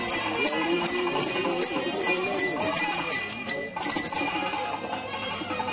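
Pooja bell rung in a quick, even rhythm of about three strikes a second during an aarti, stopping about four seconds in. Music or chanting runs underneath.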